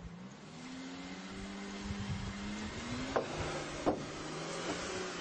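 Audi Q7 SUV's engine revving under load as it is driven out of soft beach sand: the engine note climbs slowly in pitch and gets louder, then drops about three seconds in. Two short sharp sounds come about three and four seconds in.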